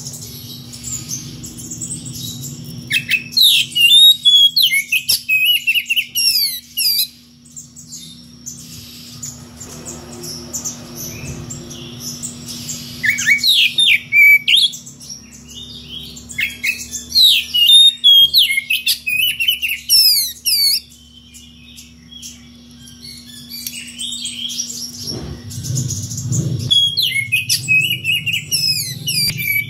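Oriental magpie-robin (kacer) singing a rival-calling song: three spells of rapid, varied whistled and chirping notes with short pauses between. A faint steady low hum runs underneath.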